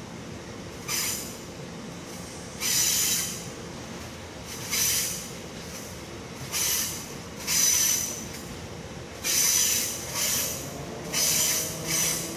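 Freight train's wagon wheels squealing on curved track, in about nine short, high-pitched squeals a second or two apart, over a low steady rumble as the wagons run away from the listener.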